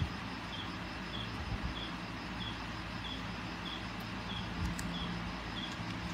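Steady background hiss and low hum, with a faint high chirp repeating evenly about one and a half times a second.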